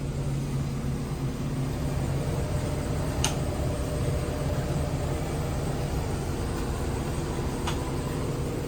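A steady low mechanical hum with two short, sharp clicks, one about three seconds in and one near the end.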